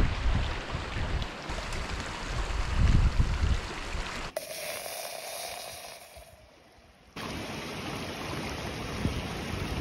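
Wind buffeting the microphone: a rumbling, gusty rush. It drops away suddenly about four seconds in and comes back just as suddenly about three seconds later.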